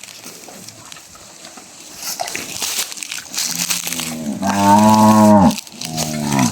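A cow mooing: one long, loud moo starting a little over three seconds in that drops in pitch as it ends, then a second moo beginning near the end. Light crunching comes before the first moo.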